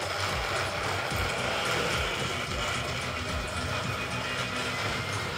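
Battery-powered motorised Thomas & Friends toy engine running steadily along plastic track, its small electric motor and gears whirring at an even pitch.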